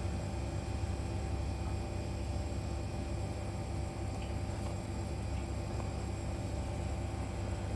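Steady mechanical hum, strong and low with faint fixed higher tones, and a few faint ticks about halfway through.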